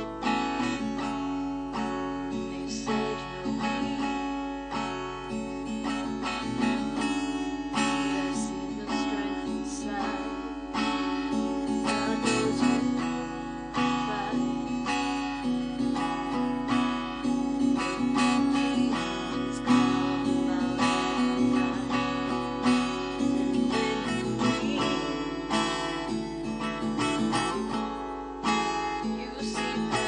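Acoustic guitar playing a folk song, with a woman singing along.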